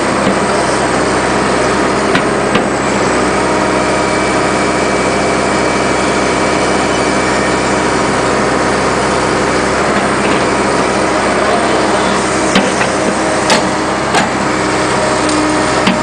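Caterpillar 215 excavator's diesel engine running steadily while the boom and bucket work, with a few sharp clanks.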